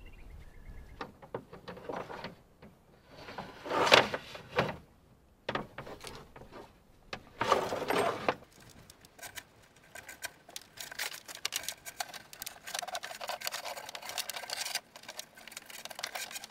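Power cables and their plug connectors being handled and pulled along the inside of a wooden kayak's cockpit: rustling and scraping, with louder bursts about four and eight seconds in, then a long run of rapid clicking and scraping from about ten to fifteen seconds in.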